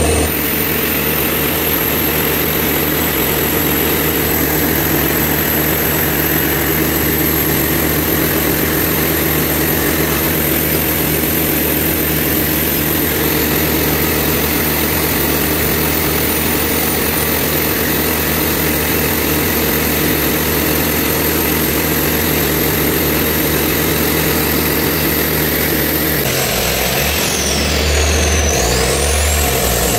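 Large diesel engine running steadily at constant speed, a loud even hum with a high whine above it. Near the end the sound shifts, and a high tone slides down and back up.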